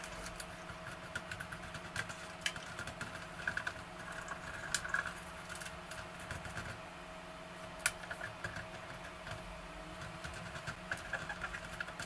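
A cotton swab scrubbing between the bare blue Alps switches of a Monterey K101 keyboard with its keycaps off, making rapid scratchy rubbing with a few sharp light clicks scattered through.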